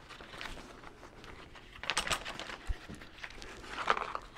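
Small packaging rustling and crinkling in short bursts as accessory parts are handled, with a soft knock a little past halfway.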